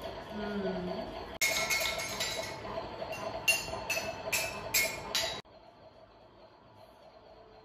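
A toddler handling small plastic toys on a play mat: a run of about six sharp clicks and clinks over a few seconds, which stops suddenly and leaves quiet room tone.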